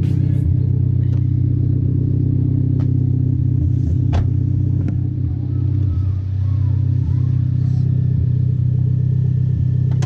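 Mitsubishi Lancer Evolution X's turbocharged 2.0-litre four-cylinder idling steadily through a catless exhaust.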